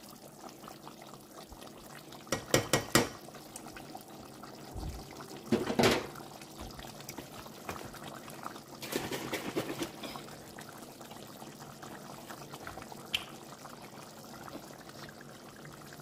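Seafood sauce in a pot being worked with a utensil as half-and-half is added to thicken it, with liquid pouring and sloshing. A quick run of sharp clinks against the pot about two to three seconds in, a louder burst near six seconds, and a rougher clatter around nine to ten seconds.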